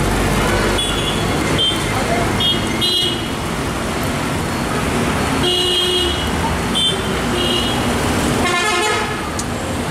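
Busy road traffic running steadily, with vehicle horns giving short toots about seven times.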